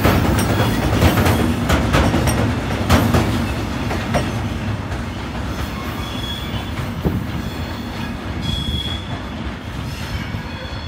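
Freight train hopper wagons rolling away on the track: the wheels clack over the rail joints, and brief wheel squeals come about six and eight and a half seconds in. The rumble fades as the wagons recede.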